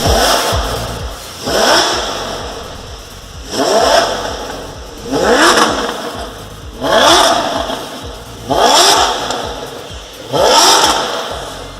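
Maserati with a Hurricane aftermarket sport exhaust being revved in a series of loud throttle blips, about one every 1.7 seconds, each rev jumping up and then falling back to idle.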